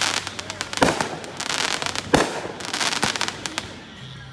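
Consumer aerial fireworks going off: dense crackling and popping, with two sharp bangs about a second and a half apart, dying down near the end.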